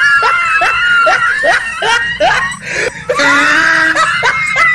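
Dog screaming in fright: a shrill, held high cry over rapid yelps about four or five a second, breaking off briefly in the middle before starting again.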